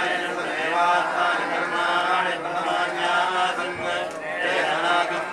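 Priests chanting Sanskrit Vedic mantras for a homa fire offering, a continuous flowing recitation without pauses.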